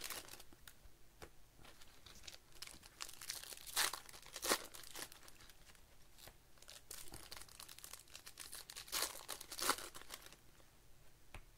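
Plastic wrappers of Bowman baseball card packs crinkling and tearing as packs are opened by hand, in irregular bursts, loudest about four seconds in and again around nine to ten seconds.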